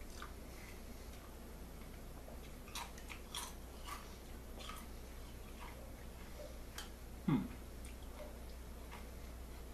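A person chewing a crunchy cinnamon-coated taco shell with faint crisp crunches, and a single louder short low sound about seven seconds in.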